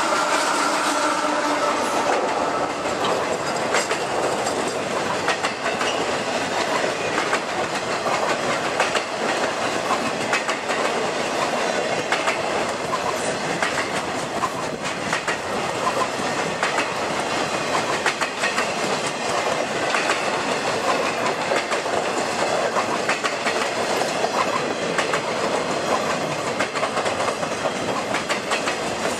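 A CSX intermodal freight train's double-stack container well cars rolling past in a steady rush of noise, the wheels clacking over the rail joints throughout.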